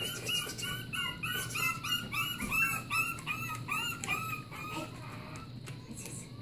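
Small puppies yipping and squealing in play, a quick run of short high cries about three a second that trail off near the end.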